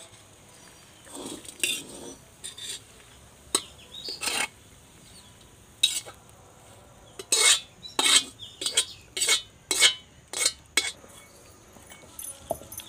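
Metal spatula scraping a kadai (Indian frying pan) to empty fried moringa seeds into a stone grinder: short, sharp scrapes, a few at first, then several a second from about seven seconds in.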